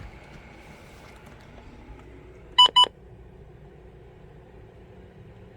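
Two short, sharp electronic beeps in quick succession, a little past halfway through, over a faint steady background hum.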